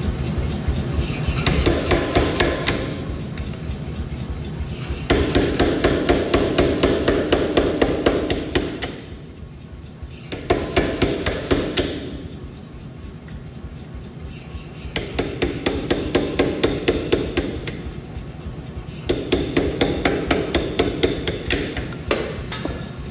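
Power hammer pounding a red-hot stainless-clad San Mai steel billet in about five bursts of quick, even blows, each a few seconds long, with the machine running steadily between bursts. At the start the blows fall on a handled hot-cut tool held on the steel, notching it for the tang.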